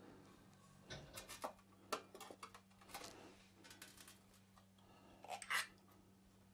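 Light clinks, knocks and scrapes of the oil burner's fuel pre-filter being unscrewed and handled over a metal drip tray, with the loudest clatter near the end.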